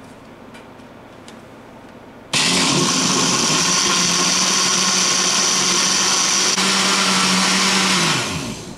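Countertop jug blender switched on about two seconds in, running steadily while blending a shake of milk, banana and sunflower seeds, then switched off near the end and winding down with falling pitch. A few faint clicks come before it starts.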